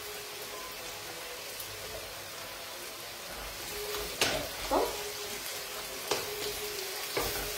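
Octopus and artichoke pieces frying in oil in a wok: a steady sizzle, with a few scrapes of a wooden spoon stirring the pan in the second half.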